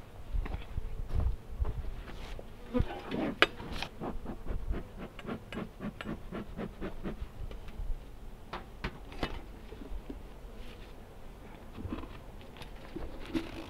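Honeybees buzzing around a hive, with a run of sharp clicks and knocks. The loudest come about three and a half seconds in and again around nine seconds.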